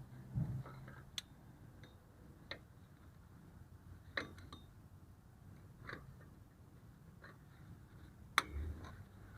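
Scattered light clicks and taps of hand tools and metal parts as a drum brake assembly is worked on, a few seconds apart, with a low knock shortly after the start and the sharpest click about eight seconds in.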